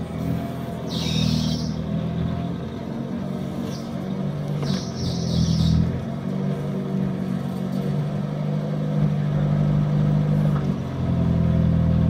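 Willys Jeep engine running steadily while it drives a rear-mounted backhoe's hydraulics through a dig, its note shifting with the load. Two brief high hisses come about a second in and about five seconds in.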